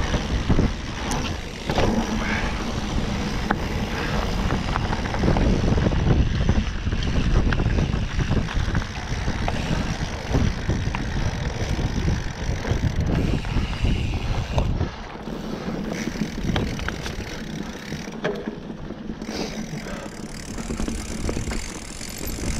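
Mountain bike riding a dirt forest trail: tyres rumbling over the ground, with rattles and knocks as the bike hits bumps, and wind buffeting the camera microphone. The rumble eases off about two-thirds of the way through.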